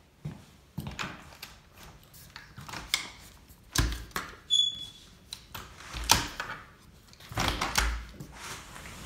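Irregular clicks and knocks, some with a low thud, with one short high electronic beep about halfway through.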